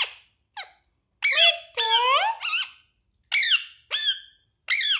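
Indian ringneck parrot calling: a series of about seven short, high, squeaky chirps and squawks that slide up and down in pitch, with brief pauses between them.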